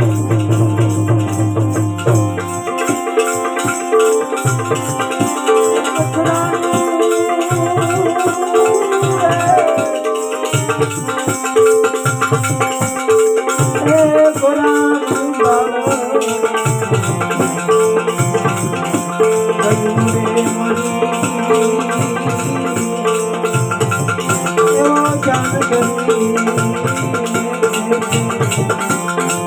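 Instrumental interlude of a Gujarati bhajan: a wavering melody over a steady drone, with hand percussion keeping a fast, even rhythm.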